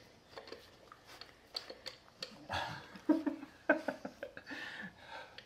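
Light clicks and taps from a screwdriver working at a motorcycle's side cover, then, from about halfway, a few short, quiet vocal sounds.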